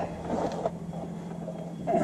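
Faint small knocks and handling noises of hands and tools working on the underside of a Subaru Sambar kei truck, over a steady low hum.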